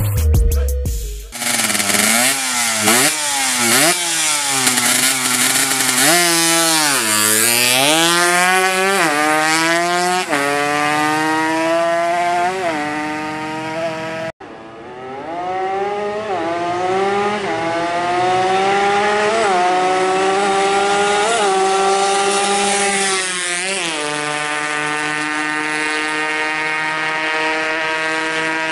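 Kawasaki Ninja drag bike engine being revved over and over, its pitch rising and falling with each blip of the throttle, then held steadier at a higher speed near the end; the bike is said to be coughing, running rough. The sound cuts off abruptly about halfway and picks up again.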